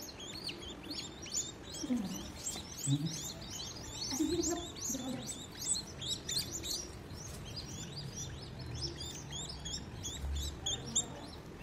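Downy raptor chicks giving rapid, high, thin chirps, several a second without pause: begging calls while being hand-fed with tweezers.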